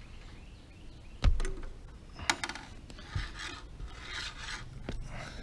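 Hands, knees and sandals scraping and rasping over gritty asphalt roof shingles as a person climbs off a ladder onto the roof, in several irregular scrapes. A single sharp knock comes about a second in.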